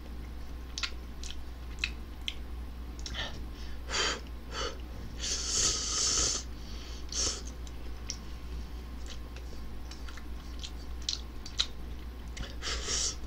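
A person slurping instant ramen noodles from a spoon, one long slurp about five seconds in and a few shorter ones, with chewing, lip smacks and breathing between. A steady low hum runs underneath.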